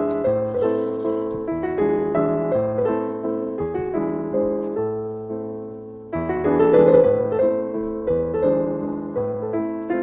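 Background piano music: a gentle melody of struck notes that die away, thinning out before a new phrase comes in about six seconds in.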